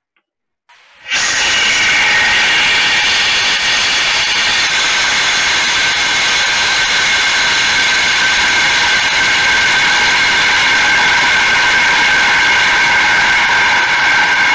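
Loud, steady rush of wind over a camera mounted on a high-power rocket's airframe in flight, with several steady whistling tones through it. It cuts in suddenly about a second in.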